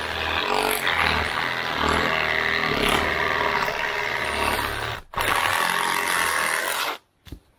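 Parkside PSSA 20-Li A1 cordless reciprocating saw sawing through a tree branch under load without stalling. It lets off for a moment about five seconds in, then runs again and stops abruptly about seven seconds in, with one short spurt just after.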